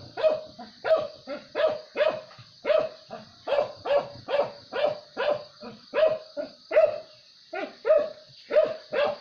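A dog barking over and over, about two to three barks a second, with a short break about three-quarters of the way through.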